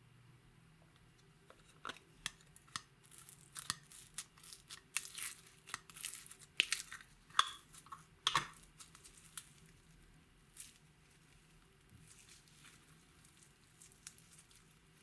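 Slime being pressed and worked by hand, giving a run of sharp crackles and popping clicks. They come thickest through the first half and thin out to a few scattered pops later.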